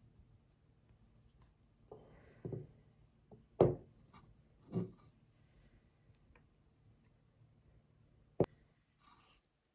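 Handling of an Ozeki One Cup glass sake jar and its plastic overcap: a few short rubbing, scraping knocks in the first half, then one sharp click near the end.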